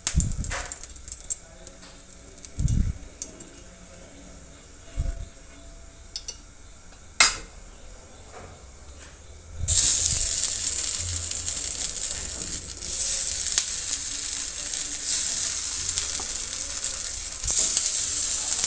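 Semolina squares sizzling in hot oil on a tawa (flat griddle). The sizzle starts suddenly about halfway through as the first piece goes down and gets louder in steps as more pieces are added. Before it there are only a few soft knocks and one sharp click.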